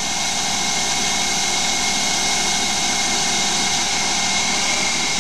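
Small Hercus CNC lathe taking a turning cut in 2011 aluminium with an insert tool. The spindle drive runs steadily with a high whine, over a constant hiss from the spray-mist coolant.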